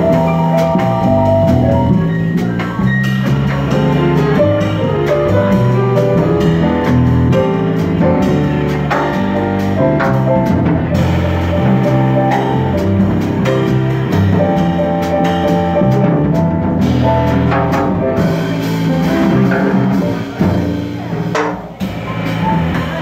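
Live jazz: an upright double bass plucked in a solo, with a drum kit keeping time behind it.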